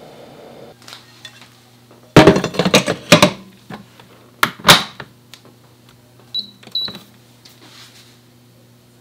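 Metal inner pot clattering as it is set into a Cuckoo electric rice cooker, then two sharp knocks as the lid is shut. Two short beeps follow from the cooker's control panel as it is switched on.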